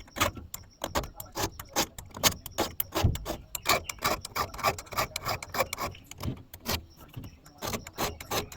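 A file rasping over the cutters of a WEN electric chainsaw's chain as it is sharpened by hand, in quick, uneven scraping strokes, several a second.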